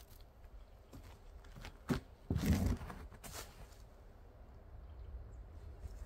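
A disc golfer's tee throw: quick steps and the swing of the throw on the tee pad, loudest about two and a half seconds in, with a few lighter steps around it. A steady low rumble of wind on the microphone lies underneath.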